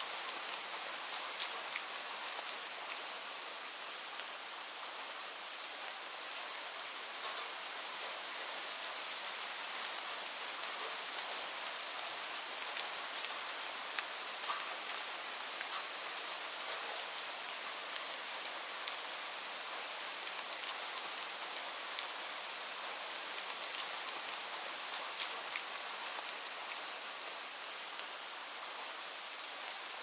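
Steady rain falling: a dense, even hiss with many separate drop taps scattered through it.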